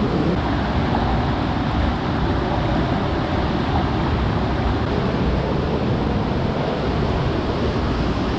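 Steady rushing water with wind buffeting the microphone, an even noise that does not let up.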